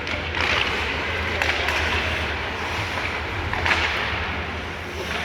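Ice hockey in play in an arena: skates scraping the ice and a few sharp clacks of sticks and puck, over a steady low hum of the rink.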